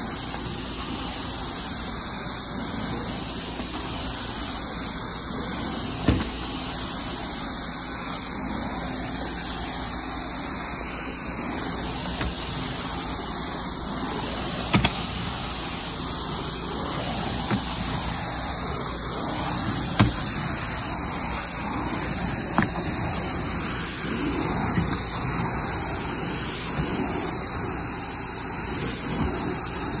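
Carpet-cleaning machine running steadily with a constant rushing noise, broken by a few sharp knocks.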